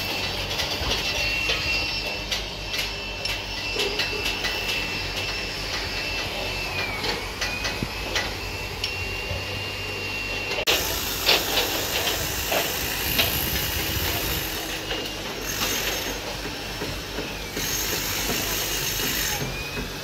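Construction-site noise: a steady hiss with scattered metal clicks and clinks from rebar work, under a thin high whine that dips in pitch and recovers twice. The sound changes abruptly about ten seconds in.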